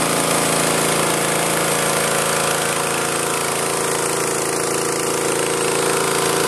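H5.5AK150 high-pressure breathing-air compressor, driven by a small petrol engine, running steadily as it pumps air into a scuba cylinder. A constant engine-and-compressor drone at an even pitch, without change.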